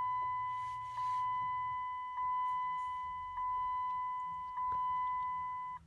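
Dodge Grand Caravan instrument-cluster warning chime: a steady, clear tone sounded five times about a second apart, each note fading slightly before the next. It goes off as the airbag warning light comes on after the passenger airbag indicator connector is unplugged.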